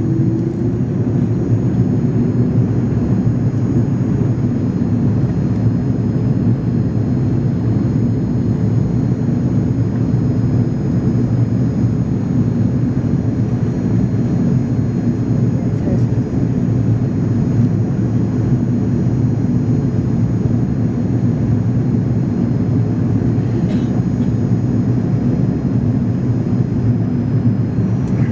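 Airbus A300 jet airliner noise: a loud, steady low rumble with a faint high whine held throughout, not rising or falling.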